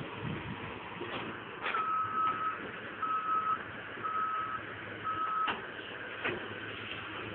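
Movement alarm on a Caterpillar 315 excavator beeping four times, about a second apart, at one steady pitch, over the diesel engine running steadily. A few sharp knocks come before, between and after the beeps.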